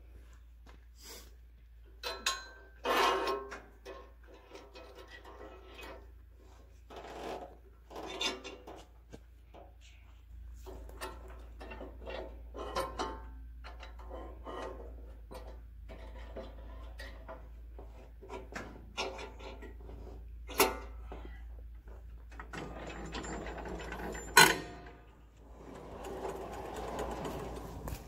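Scattered knocks, thumps and scrapes of a squared log being turned and shifted on the steel bed of a Wood-Mizer LT15 Go sawmill, with two sharp clanks in the second half and a stretch of mechanical rattling near the end.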